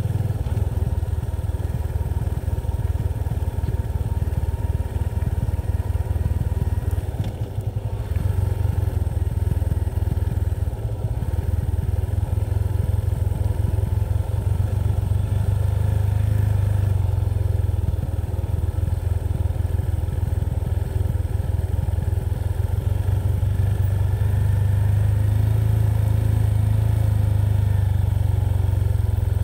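Steady low rumble of a moving vehicle on the descent, picked up by a camera mounted on it, with a fluttering, buffeting texture and small dips in level about a third of the way in.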